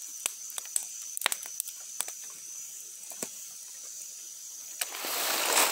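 Small wood campfire crackling, with frequent sharp pops, over a steady high-pitched background drone. Near the end a rising hiss swells for about a second.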